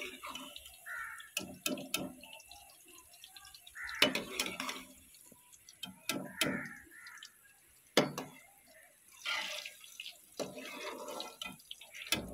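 Bitter gourd slices sizzling in hot oil in a steel wok, fried light golden brown, with a metal spoon clinking sharply against the wok now and then as the pieces are scooped out onto a plate.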